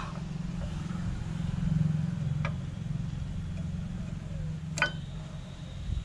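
Steady low hum, with a faint click about two and a half seconds in and a sharper click near five seconds as a new brake pad is pushed into a disc-brake caliper bracket.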